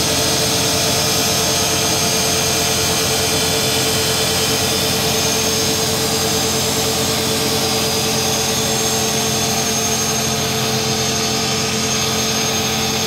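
WMW SI 4 internal grinding machine running at a steady speed: an even mechanical hum and whine with several constant tones that hold their pitch.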